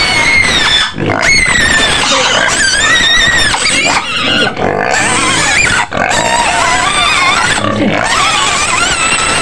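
A pen of young white domestic pigs squealing loudly, many high, wavering squeals overlapping almost without a break, with brief dips about a second, four seconds and six seconds in.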